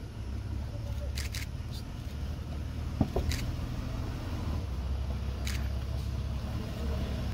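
Steady low rumble of a vehicle engine running, with a few short rustling hisses and a sharp click about three seconds in.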